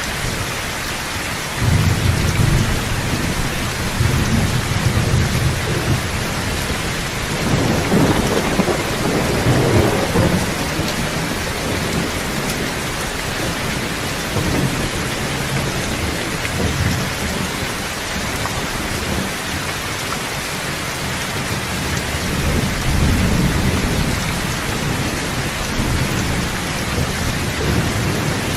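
Steady heavy rain with rolling thunder: deep rumbles swell about a second and a half in, again more strongly about a third of the way through, and once more near the end.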